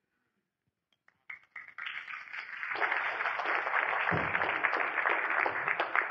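Audience applauding, starting about a second in and swelling to a steady clapping.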